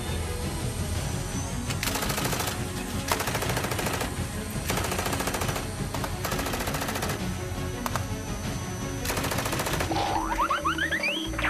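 Cartoon soundtrack: a music bed with about six short bursts of very rapid rattling clatter, each lasting roughly half a second, and several quick rising whistle-like glides near the end.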